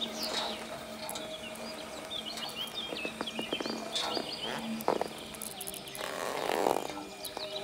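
Outdoor ambience of small birds chirping in quick, varied short notes, over a faint steady hum.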